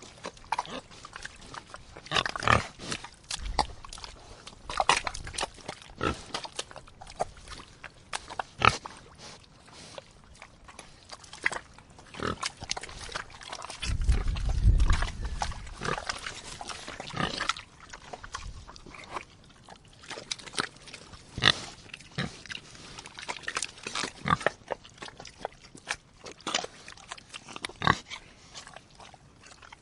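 Pigs grunting as they root in mud: a run of short, irregular grunts and sharp wet clicks. A louder low rumble comes about halfway through and lasts about a second and a half.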